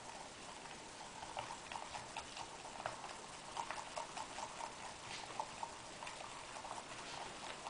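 Thin wooden stick stirring glue and shaving foam in a glass bowl: irregular light clicks and taps of the stick against the glass, several a second.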